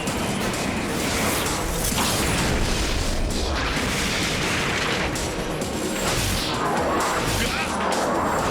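Cartoon action soundtrack: dramatic music mixed with crashing and booming impact effects and whooshes, continuous throughout.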